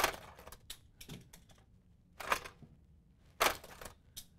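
Sharp plastic clicks and clatters from a Hot Wheels Blastin' Rig toy car hauler as its launcher is pulled back and fired, shooting a die-cast car out of the front of the cab. The loudest clack comes right at the start, with more about two seconds and three and a half seconds in.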